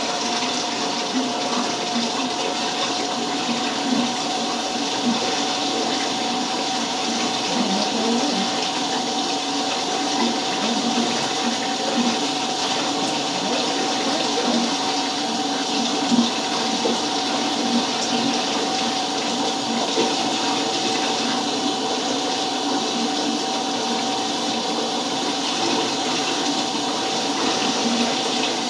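Water running steadily from a tap as hair dye is rinsed out of hair: an even rush of water with a constant tone running under it, unbroken throughout.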